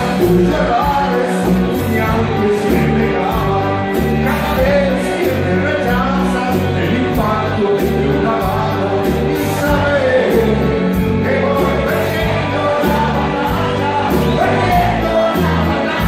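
Live band music with a steady, driving beat and a man singing into a microphone over it, amplified through the hall's sound system.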